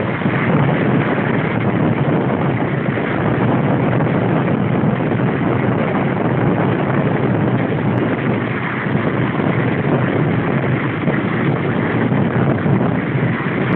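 Loud, steady rushing noise of wind over the microphone and road noise from a moving car.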